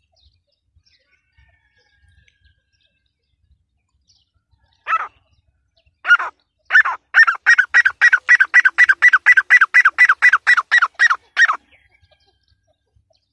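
Grey francolin calling: two single shrill notes about a second apart, then a fast even run of about twenty loud, shrill notes, some four a second, lasting nearly five seconds before it stops.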